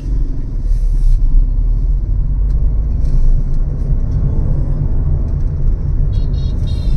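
Car driving, heard from inside the cabin: a steady low rumble of engine and road noise, with a brief high-pitched sound a little before the end.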